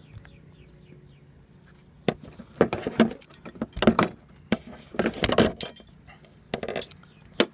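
Metal fall-protection harness and lifeline hardware jangling and clinking in several loud clusters from about two seconds in, as the wearer moves over the asphalt shingle roof.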